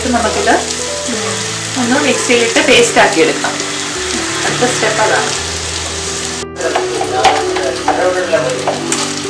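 Sliced onions and dried red chillies sizzling in hot oil in a nonstick pan, stirred with a wooden spatula, over soft background music. After a short break near the end, a wooden spatula scrapes ground spice paste out of a steel mixer-grinder jar over the pan.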